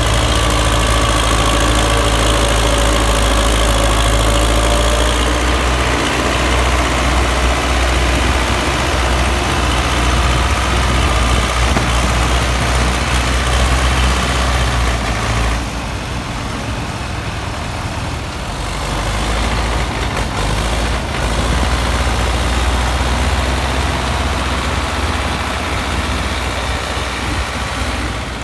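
Belarus MTZ-50 tractor's four-cylinder diesel engine running steadily under heavy load as it pulls a loaded double-axle sugarcane trailer. The engine sound drops a little about halfway through.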